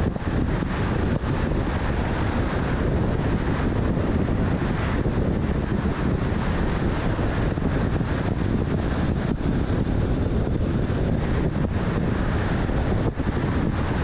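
Steady rush of wind and road noise from a vehicle moving at highway speed, with wind buffeting the microphone.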